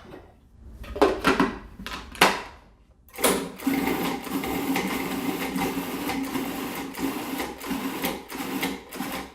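A few knocks about a second in, then an electric food processor starts about three seconds in and runs steadily, chopping strawberries.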